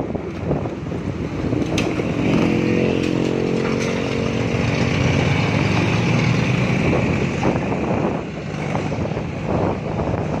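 Motorcycle engine running at a steady speed, its note loudest from about two seconds in until near the end, with wind rushing over the microphone.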